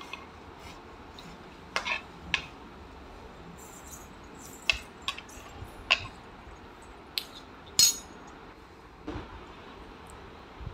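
Metal spoon stirring tamarind gravy in a metal pan, clinking against the pan now and then: about nine separate sharp clinks, the loudest a little past the middle.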